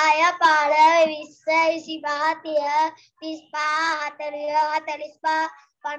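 A young boy chanting numbers in a sing-song voice, in short held syllables with pauses between them, reciting a count by fives in Sinhala. It comes through video-call audio.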